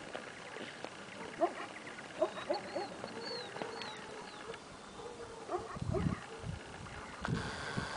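Faint bird calls in the background: scattered short chirps and a few high whistles.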